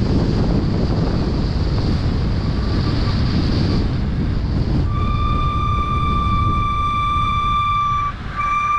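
Wind rushing over the microphone while riding a bicycle, then from about five seconds in a steady high-pitched squeal, broken off briefly and resuming near the end, as the bicycle's brakes squeal while it slows.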